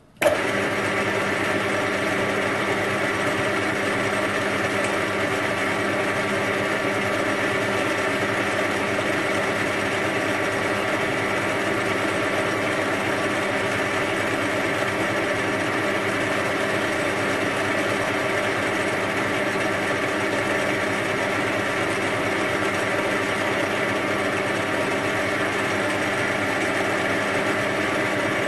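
Metal lathe switched on just after the start, then its motor and spindle run steadily at 620 RPM with an even whine of several steady tones.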